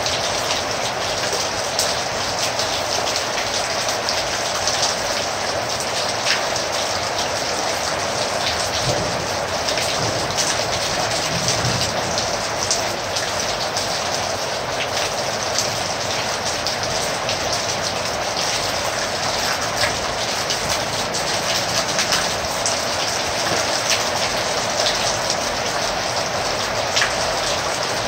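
Heavy rain falling steadily, with many sharp individual drop impacts over a dense, even hiss.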